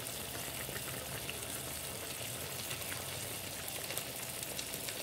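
Tamarind broth with dried fish boiling in a pan: a steady bubbling fizz with many small pops.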